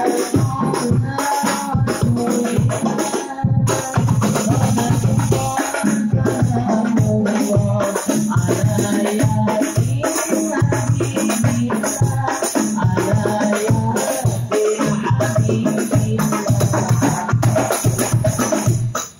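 Rebana hadroh ensemble: several hand-struck frame drums playing a fast interlocking rhythm with deep low beats, under a male voice singing through a microphone. The playing breaks off right at the end.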